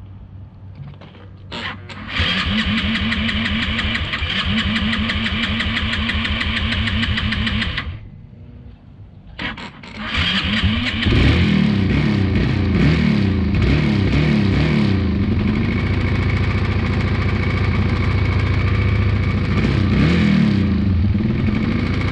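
2002 Yamaha 225's engine being started without the choke: the electric starter cranks for about six seconds without catching and stops, then cranks again and the engine fires about eleven seconds in, running with its revs rising and falling.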